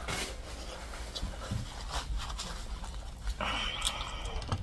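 A woman panting and blowing out hard through an open mouth while eating spicy food, with a longer hissing breath near the end.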